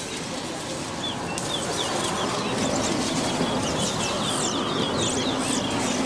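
Caged towa-towa finches singing: a quick run of short, high whistled notes repeating over and over, over steady background noise.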